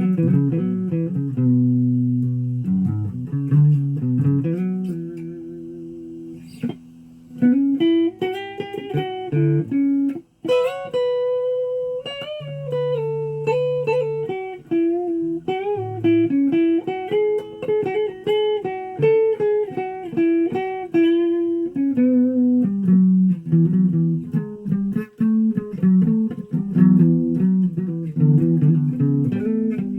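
A guitar played with plucked single notes and chords forming a melody, with a brief break about ten seconds in.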